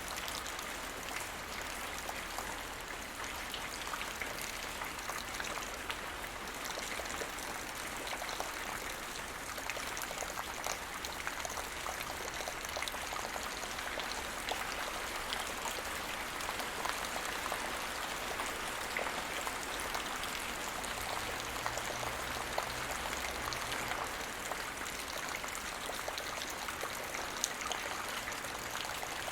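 Light rain falling steadily on the ground, a dense patter of small drops.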